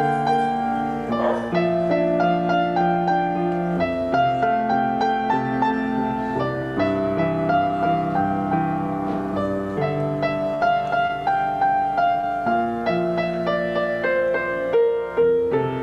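Piano music, with calm held notes that change about once a second.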